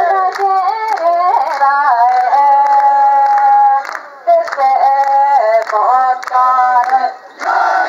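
A single voice singing a slow Japanese song in long held notes that step up and down, with short breaths between phrases. Just before the end, the mikoshi bearers' crowd shout comes in.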